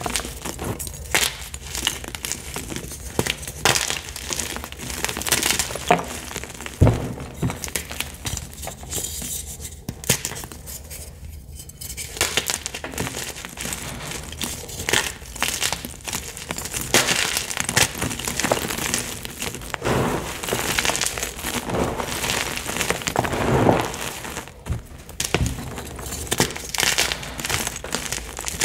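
Picsil gym chalk blocks crunching and crumbling as they are squeezed and broken by hand, a dense run of dry crackling crunches with small pieces dropping onto crushed chalk. The crunching eases for a couple of seconds about a third of the way in and is busiest in the second half.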